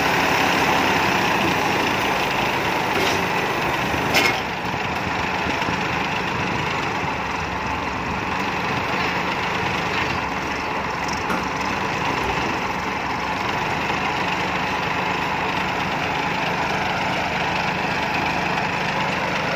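Rice combine harvester's engine running steadily, with one short knock about four seconds in.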